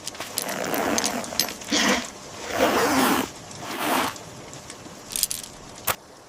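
A run of four rustling, scraping noises, each up to about a second long, followed by two short sharp clicks near the end.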